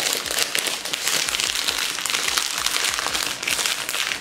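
Thin clear plastic wrapper being peeled off a laptop and crumpled in the hand: continuous crinkling and crackling.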